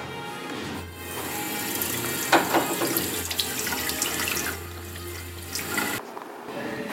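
Water running from a two-handle bathroom faucet into a ceramic sink basin in a steady stream, stopping about six seconds in.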